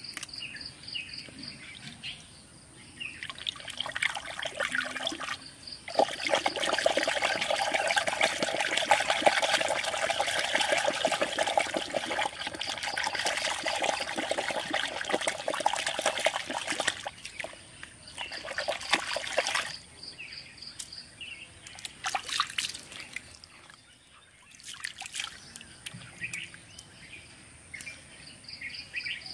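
Muddy water in a small dug hole being churned by hand and stick: a dense, continuous sloshing and splashing that starts a few seconds in and dies away after about two-thirds of the way, with a few single splashes later. Insects chirp in pulses during the quieter stretches.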